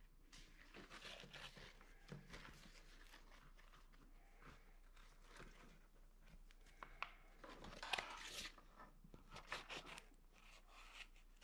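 Faint rustling and light clicks of a hydration backpack's nylon and mesh fabric, straps and plastic hose being handled. A cluster of louder rustles and clicks comes about seven to ten seconds in.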